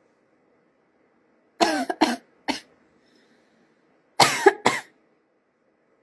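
A woman smoking a cigarette coughs in two short bouts: three voiced coughs about a second and a half in, then two more a couple of seconds later.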